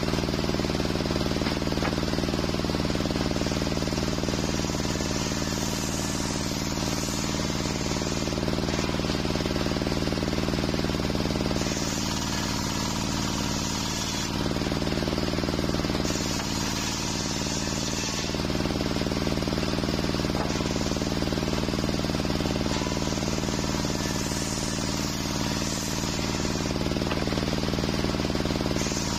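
Homemade circular saw bench running steadily, its large blade ripping waru (sea hibiscus) boards lengthwise into rafter stock. The cutting noise eases and picks up again a few times as one board finishes and the next is fed in.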